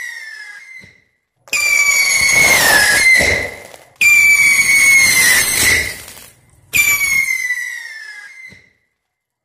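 Whistling 'pháo chuột' (mouse rocket) firecrackers shooting along a stretched steel wire. A shrill whistle fades out at the start, then three more start suddenly one after another, each lasting about two seconds and dropping slightly in pitch.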